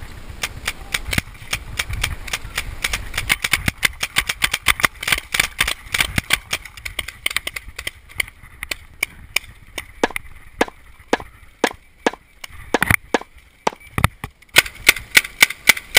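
Volleys of paintball marker shots, sharp pops several a second, thinning out about halfway through and coming thick again near the end.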